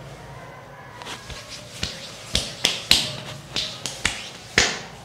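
A quick, irregular run of about ten sharp hand strikes during a head massage, starting about a second in, with the loudest near the middle and near the end.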